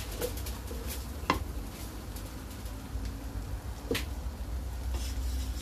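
Wooden spatula stirring and tossing fried rice in a large metal pot, with two sharp knocks of the spatula against the pot, about a second in and again near four seconds, over a steady low hum.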